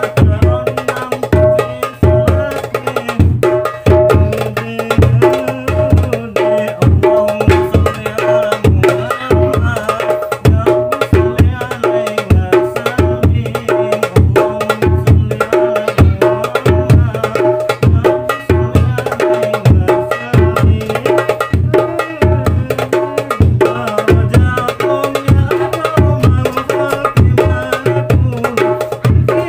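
Hadroh drums played by hand together in a steady, fast rhythm: sharp darbuka and tam frame-drum strokes over regular deep bass-drum thumps.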